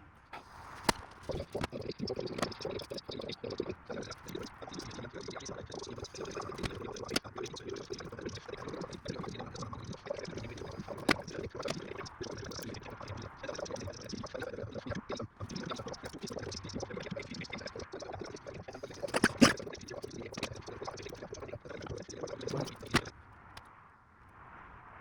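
Continuous close handling noise: dense small clicks and rustling, with a sharp knock about nineteen seconds in, stopping shortly before the end.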